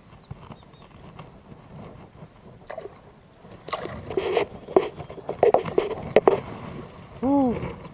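Handling noises aboard an inflatable kayak: a run of knocks and water sloshing starting about halfway in, then near the end a short pitched sound that rises and falls.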